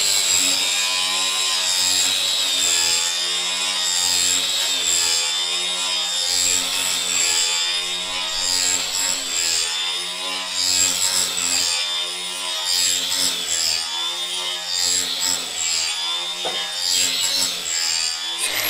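Cordless angle grinder grinding the steel edge of a lawn mower blade in a sharpening jig, a steady high whine over the rasp of the disc on the metal. Extra metal is being ground off the heavy end of the blade to balance it.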